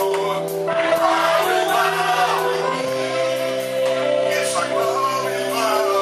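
Church worship music: held chords with voices singing over them, in a large hall.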